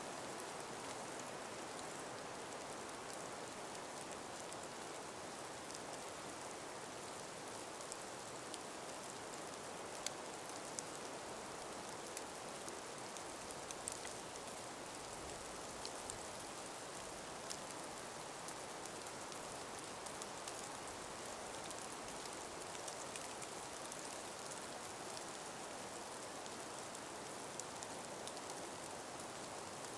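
Calm breeze in an ice- and snow-covered forest: a steady soft hiss, with scattered faint ticks and clicks throughout.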